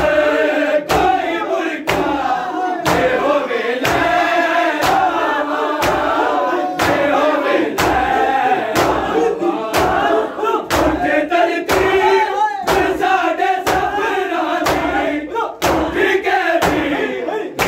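A crowd of men chanting a nauha together while doing matam, beating their bare chests with open hands, the slaps landing together in a steady beat about once a second.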